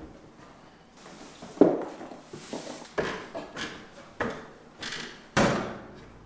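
Folding wooden attic ladder knocking as it is unfolded, then footsteps on its wooden rungs as someone climbs it: a run of separate knocks and thuds, the loudest about one and a half seconds in.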